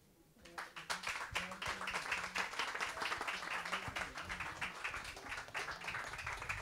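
Small audience applauding: hand claps start about half a second in and run on as a dense patter, easing off a little toward the end.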